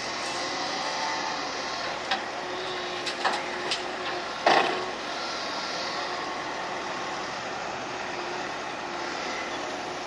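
Wacker Neuson EW100 wheeled excavator running steadily as it works its hydraulic arm. A few sharp knocks are followed by one loud bang about halfway through, as the bucket dumps mud into a steel tipper truck body.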